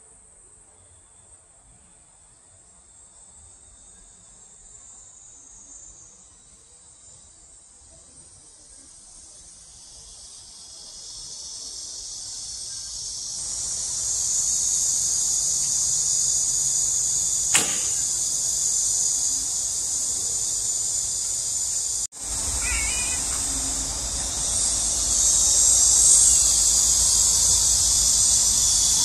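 A high, steady insect chorus that swells from faint to loud partway through. About two-thirds of the way in, a single sharp snap, the string release of a traditional Korean horn bow loosing an arrow.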